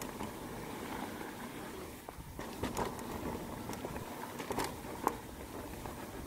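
Mountain bike descending a dirt trail: steady rolling noise from the tyres on the loose, leaf-covered dirt, with sharp knocks and rattles from the bike over bumps, several of them in the second half.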